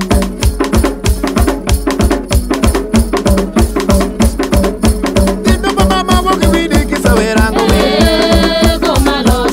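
Traditional Jopadhola (Ugandan) dance music: a fast, steady drum and rattle beat, with a melodic line coming in after about six seconds.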